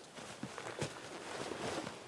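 Footsteps outdoors, a run of irregular crunching steps.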